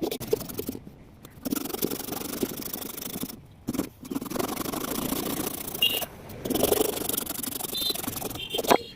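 Abrasive scraping and rubbing on a coconut shell being worked into a cup, in several short stretches broken by abrupt gaps.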